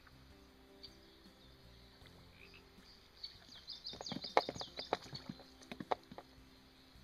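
A hooked trout splashing and thrashing at the water's surface as it is reeled in: a burst of splashes starting about three and a half seconds in and lasting nearly three seconds.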